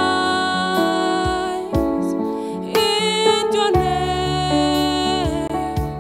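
Yamaha electronic keyboard playing a slow worship song: held chords changing every second or two, with a wavering melody line above them.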